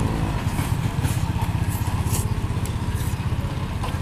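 A motorbike engine running close by, a steady low rumble. Short hissy slurps come through over it as noodles are eaten.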